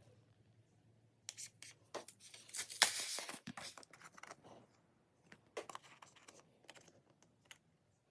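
Irregular scratching, rustling and small clicks of materials being handled, loudest and busiest about three seconds in.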